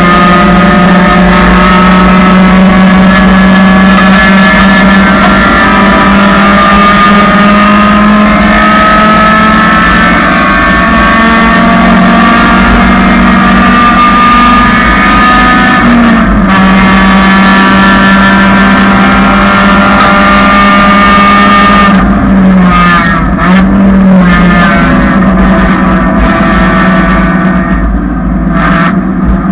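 A 1999 Honda Civic's four-cylinder engine at high revs under hard acceleration, its pitch climbing steadily through the gears with a quick shift about halfway through. From about three-quarters of the way in, the revs drop and waver in a run of brief dips, typical of braking and downshifting into a corner.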